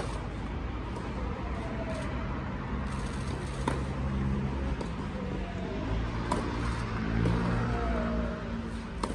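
Tennis ball struck by rackets in a rally on a clay court: four sharp hits a few seconds apart over a steady low hum of distant road traffic.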